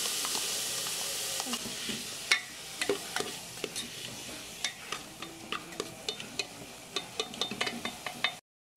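A spoon stirring and scraping diced onion, green pepper and tomato in an aluminium pot, with many sharp clicks and taps of the spoon against the pan. Under it is a soft sizzle of frying oil that fades in the first couple of seconds. The sound cuts out completely just before the end.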